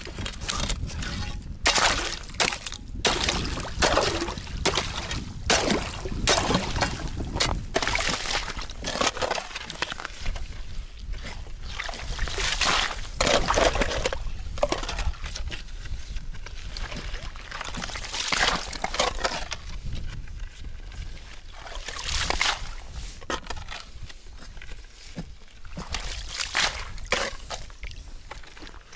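A fresh hole in river ice being chopped and cleared: irregular sharp knocks and scrapes of an ice chisel and a shovel against ice, with the slosh of wet ice chips and water being scooped out. The knocks come thickest in the first half.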